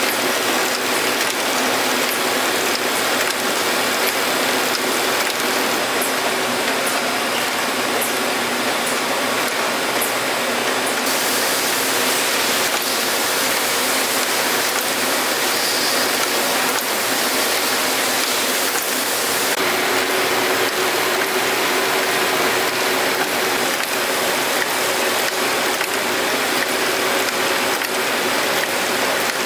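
Conveyor walking beam assembly machine running: a steady, dense mechanical rattle and clicking of conveyors and cam-driven beam. Its high end changes about eleven seconds in and again near twenty.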